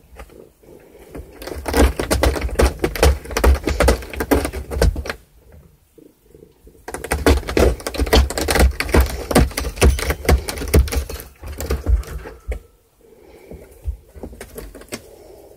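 Cat clawing and scraping at a corrugated cardboard scratcher pad: a rapid run of clicking rasps with dull thuds, in two bouts of a few seconds each.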